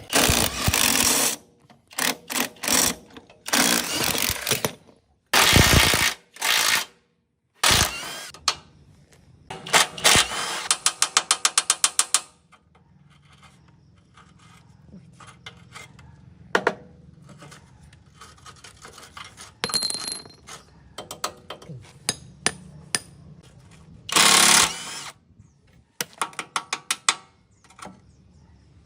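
Hand and power tool work on a small motorcycle-type engine: several short loud bursts, then a quick run of clicks at about nine a second, followed by quieter scattered knocks and clinks and one more loud burst near the end.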